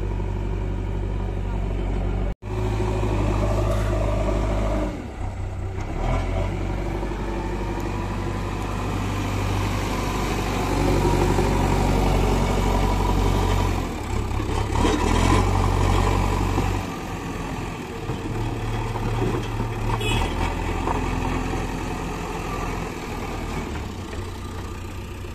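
JCB 3DX backhoe loader's diesel engine running under load, its revs rising and falling as the front loader bucket lifts and carries earth and stones.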